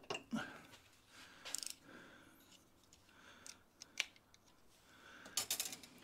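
Quiet, short scraping strokes of a utility-knife blade cleaning the back of a plastic toilet-cistern flush lever, with a few sharp light clicks of tools and parts on the workbench. The loudest scrape comes near the end.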